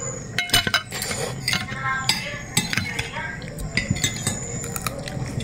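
Metal spoon and fork clinking and scraping against a plate while eating noodles, in a string of short, sharp clinks.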